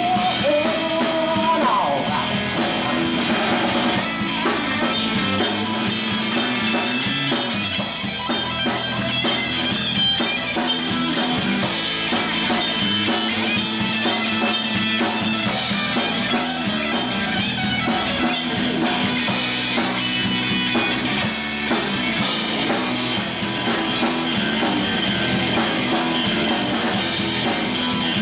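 Live rock band playing an instrumental passage: distorted electric guitar, electric bass and drum kit, loud and steady throughout.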